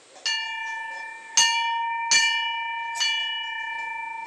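Hanging temple bell struck by hand four times at uneven intervals of about a second. Each strike rings on into the next, and the ringing carries on after the last.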